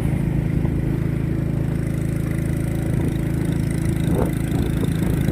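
Vehicle engine running at a steady speed, heard on board while travelling, with a steady low hum and no change in pace.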